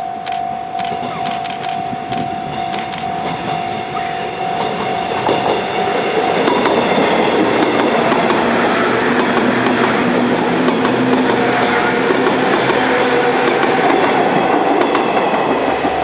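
JR 103-series electric commuter train passing close by, its wheels clattering over the rail joints, growing loud from about six seconds in. A level-crossing warning bell rings steadily in the first seconds and is then drowned out by the train.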